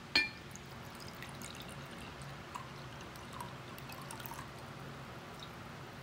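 Red wine poured from a glass bottle into a glass tumbler. A sharp clink of glass on glass just after the start is the loudest sound, then a soft pour with small glugs and bubbling for a few seconds.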